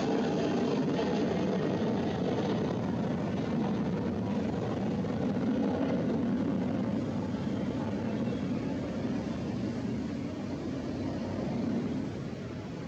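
Jet airliner engines rumbling steadily, slowly fading as the aircraft moves away.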